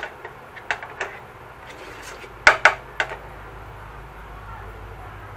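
Slotted spatula knocking against a nonstick frying pan: five sharp clacks, the loudest pair about two and a half seconds in.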